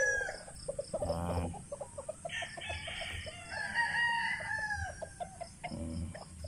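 Gamefowl roosters crowing: one crow tails off at the start, then a long crow from about two seconds in lasts some two and a half seconds and falls in pitch at the end, with short clucks in between.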